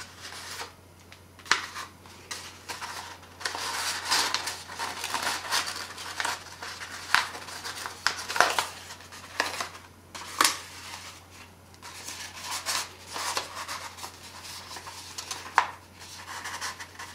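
A sheet of printer paper rustling and crackling as it is rolled tightly into a cone by hand, in uneven bursts with a few sharp crackles.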